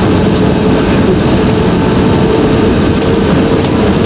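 Airbus A320 jet engines heard from inside the cabin during a go-around after an aborted crosswind landing: a loud, steady roar with a steady whine above it.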